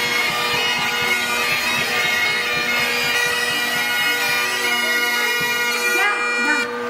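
Bagpipes playing a tune over steady drones. About six seconds in, the sound breaks up and the pitch sags as the pipes stop.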